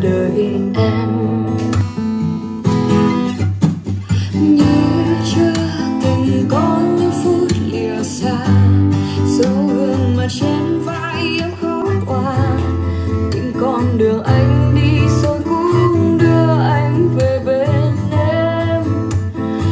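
A song with acoustic guitar and a singing voice.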